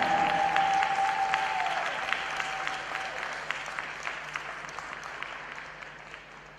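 Arena audience applauding, the clapping fading gradually away.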